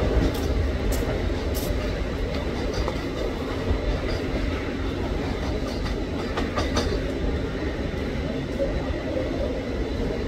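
Train running on the rails past the platform: a steady rumble, with wheel clicks over rail joints near the start and again about six seconds in.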